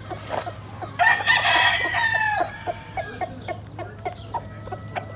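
Gamecock rooster crowing once, starting about a second in: a loud call of about a second and a half that drops in pitch at the end. Around it, short soft clucks repeat several times a second.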